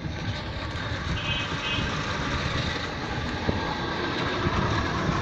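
Ride noise from on board a small vehicle moving along a town road: a steady rumble with continual low jolts and rattles.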